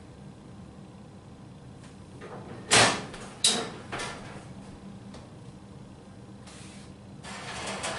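Oven door of an old enamel stove pulled open with a sharp metal clank about three seconds in, followed by a couple of lighter knocks, then a scraping slide of a metal cake pan going onto the oven rack near the end.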